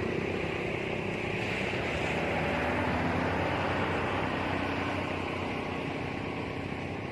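A motor engine running steadily, a low continuous hum whose pitch shifts slightly a few seconds in.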